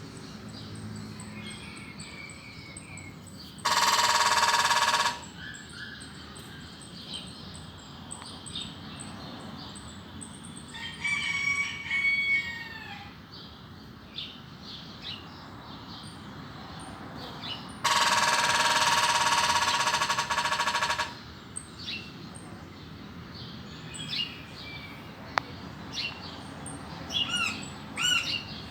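A woodpecker drumming on a metal street lamp: two loud, even buzzing bursts, the first about four seconds in and lasting just over a second, the second past halfway and lasting about three seconds. Short bird chirps come between them.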